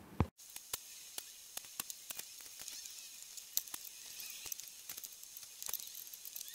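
Soldering iron melting solder onto component joints on a circuit board: a faint steady hiss with irregular small crackles and clicks from the sizzling flux.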